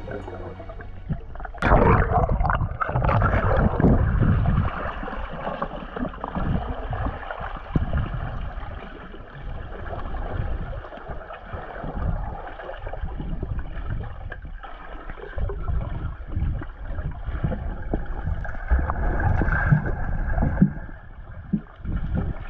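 Underwater recording of water sound as freedivers swim: a low, uneven rumble with gurgling and bubbling, muffled through the camera's housing. It starts suddenly about a second and a half in, as a music track ends.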